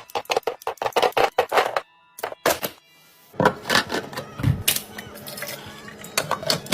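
Rapid clicks and taps of drinks and containers being handled and set down while a mini fridge is restocked. The clicks stop about two seconds in, then come back as softer knocks with a low thud in the middle.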